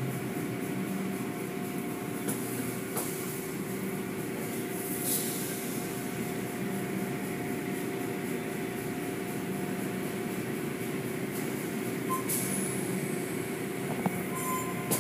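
Automatic car wash at work: a steady rush of water spray and cloth brushes over a steady machinery hum, with a few short knocks.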